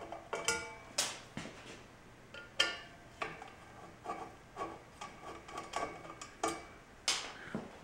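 Screwdriver working the cover screws out of a Dayton 2 hp electric motor: irregular sharp metallic clicks and clinks of the tool and screws against the steel end cover, some ringing briefly.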